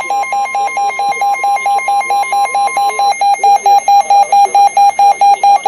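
Emergency alert attention signal: a rapidly pulsing electronic alarm beep, about four beeps a second, over a steady alert tone that stops about three seconds in. The beeping grows louder about halfway through.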